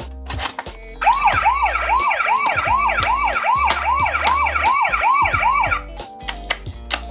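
Toy ambulance minicar's electronic siren sounding a fast yelp. The pitch rises and falls about two to three times a second for roughly five seconds, starting about a second in.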